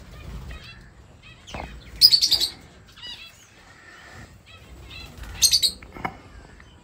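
Pet lovebirds chirping: scattered soft chirps, with two loud bursts of rapid high-pitched chirping, about two seconds in and again after five seconds.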